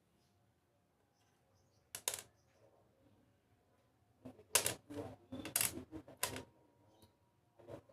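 Metal parts and hand tools clinking and knocking while blades are fitted to a wood planer. One sharp knock comes about two seconds in, then a quick run of clicks and clinks, and the last one leaves a short metallic ring.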